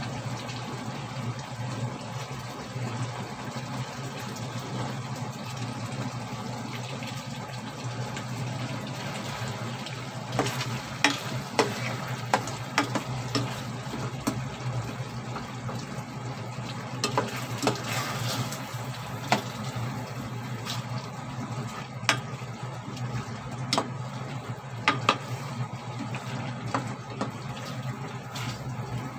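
Pork ribs simmering in sauce in an uncovered pot on a gas stove. From about ten seconds in, a spatula stirs them, with sharp knocks and scrapes against the pot.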